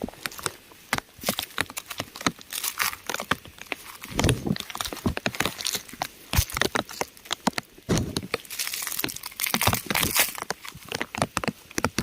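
Raindrops pattering on crumbling rock close by, an irregular scatter of sharp ticks and taps with denser, heavier spells about four seconds in and again around eight to ten seconds.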